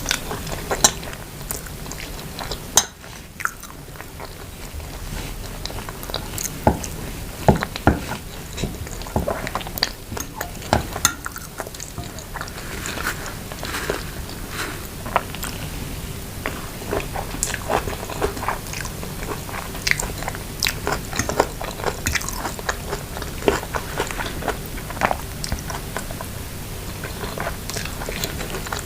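Close-up eating sounds: chewing and biting into instant noodles with grilled chicken pieces and vegetables, with irregular wet clicks and crunches.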